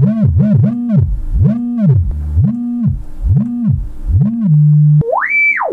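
Sine-wave test tone played through the freshly repaired Rockford Fosgate T1000-4ad amplifier's rear left channel into a small test speaker, gliding up and down in pitch in a run of low sweeps, holding one low note briefly, then about five seconds in sweeping up to a high whistle and back down. The clean tone shows the channel is passing audio again after the repair.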